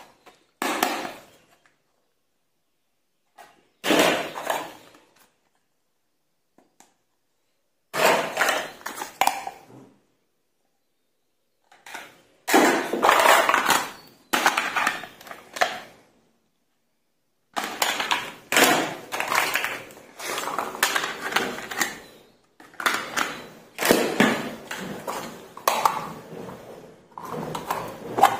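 Miniature plastic toy cookware and toy stoves clattering and knocking together as they are picked up and handled, in separate bursts of clatter with silent gaps between, busier in the second half.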